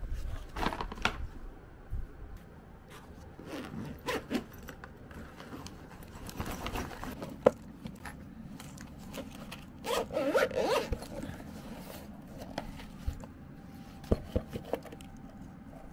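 Zipper pulled and fabric rustling as a nylon backpack and a black hard-shell zippered case are handled, with one sharp click about seven and a half seconds in.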